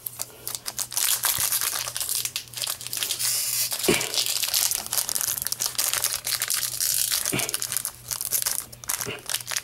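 Foil wrapper of a 2012 Panini Prizm Football card pack crinkling and tearing as it is opened by hand. It makes a dense crackle full of small sharp clicks that starts about a second in.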